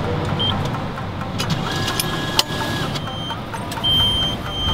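Bus ticket vending machine at work: short electronic beeps and sharp clicks over the steady whir of its mechanism as it takes the notes and dispenses a printed ticket and coin change.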